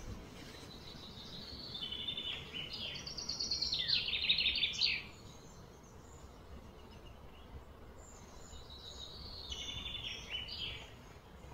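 A songbird singing: a long phrase of rapid repeated high notes that grows louder and stops abruptly about five seconds in, then a shorter phrase near the end, over steady low background noise.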